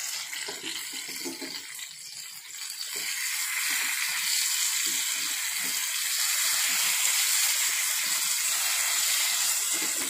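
Masala-coated Indian mackerel sizzling in hot oil in a frying pan as the fish are turned with a wooden spatula. The sizzle swells about three seconds in and stays loud.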